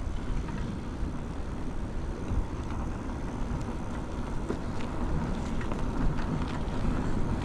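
Wind rumbling on a GoPro's microphone while moving, with low road noise underneath.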